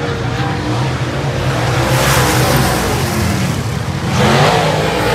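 Dirt-track modified race cars' V8 engines running hard around the oval. The engine sound swells as cars pass about two seconds in and again, loudest, about four seconds in.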